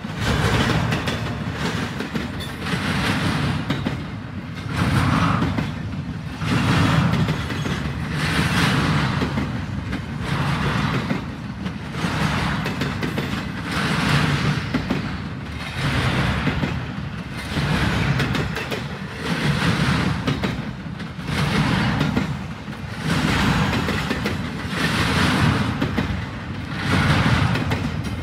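Double-stack intermodal container freight train rolling past, a steady rumble of wheels on rail with a rhythmic clatter that swells about every two seconds as each car's wheels go by.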